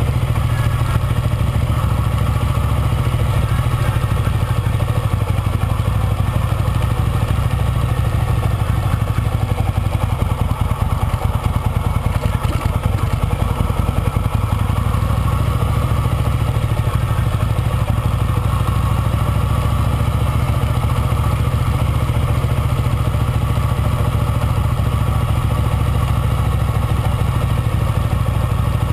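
Motorcycle engine running steadily as the bike rides along, with a heavy low rumble.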